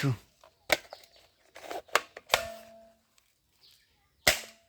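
A toy gun being fired: four short, sharp clicks spread over a few seconds, the last one the loudest, two of them followed by a faint fading hum.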